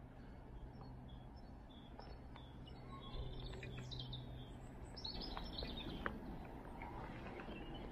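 Small birds chirping and trilling in short, scattered calls over quiet outdoor background noise, with a faint steady low hum that stops about five seconds in.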